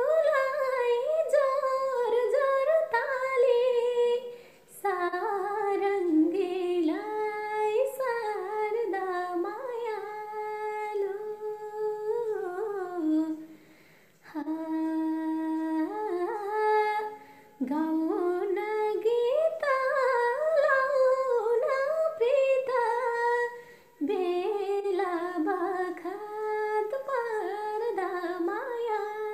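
A woman singing a slow, wordless melody with no accompaniment, in long phrases broken by short pauses for breath.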